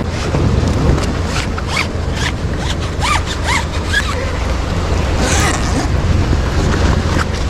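Wind rumbling on the microphone, with a run of short rasping strokes and a few brief squeaks in the middle, and a hissy rustle a little past five seconds.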